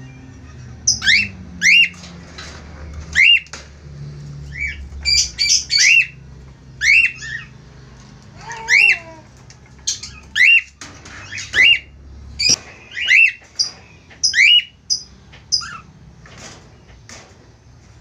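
Cockatiels calling: a string of short, sharp, upward-sweeping chirps, one or two a second, that stops shortly before the end.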